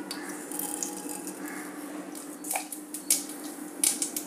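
Mustard seeds sizzling in hot oil, with a few sharp pops in the second half as the seeds start to splutter: the tempering oil is hot enough.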